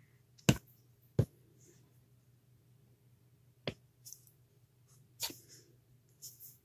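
Small handling sounds of sculpting work: two sharp clicks close together about half a second in, then softer taps and short scratchy rustles as a sculpting tool works polymer clay in a metal pendant bezel, over a faint steady hum.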